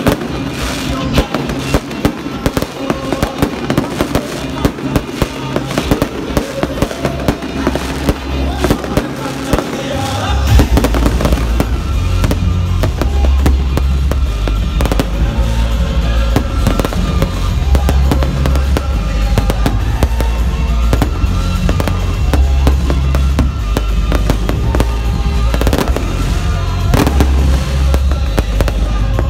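Fireworks display: a rapid run of sharp bangs from shells bursting overhead, over music played for the show, whose heavy bass comes in about ten seconds in.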